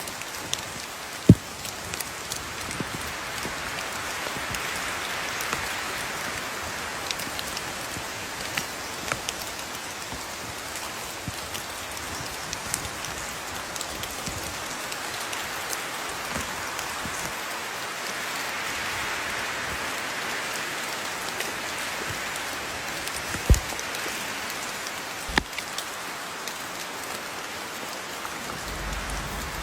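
Steady rain falling, with many small drip ticks and a few sharper knocks, one about a second in and two near the end.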